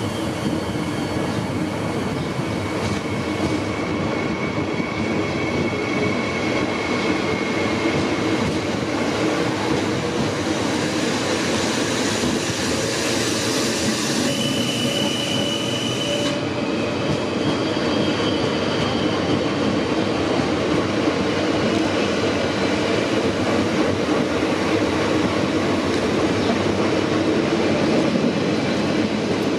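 Two coupled Régio 2N (Z 56500) double-deck electric multiple units moving through a station, with a steady rumble of wheels and running gear that grows slightly louder. Brief high wheel squeals come a few seconds in and again about halfway.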